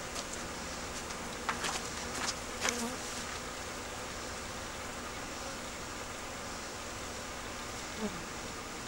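Honeybees buzzing steadily around the hive entrances. There are a few short clicks about two seconds in, and a brief falling buzz near the end.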